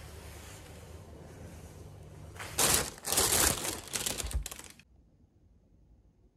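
Thin plastic carrier bag crinkling loudly for about two seconds as a takeaway box is pulled out of it, after a steady low background rumble.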